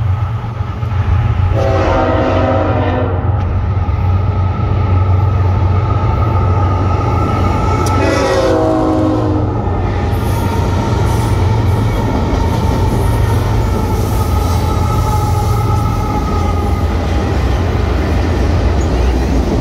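A Florida East Coast freight train led by two GE ES44 diesel-electric locomotives crossing a railway trestle close by, with a deep steady engine rumble. The horn sounds twice, once about a second and a half in and again about eight seconds in. The train's cars then roll across the bridge.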